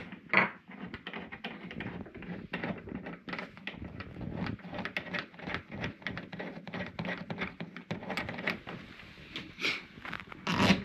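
Metal screws being driven by hand into a keypad door lock's mounting plate on a door, heard as many small clicks, scrapes and light knocks of the screwdriver and lock hardware.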